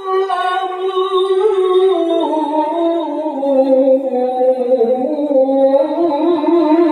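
A male qari reciting the Quran in the melodic, sung tilawah style, amplified through a handheld microphone. It is one long held phrase whose melody slides gradually downward, then wavers in ornamented turns near the end.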